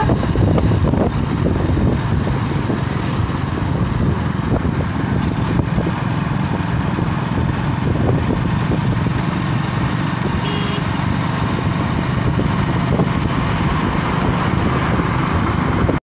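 Motorcycle engine running steadily while riding, heard from on the bike itself, with a continuous rush of road noise.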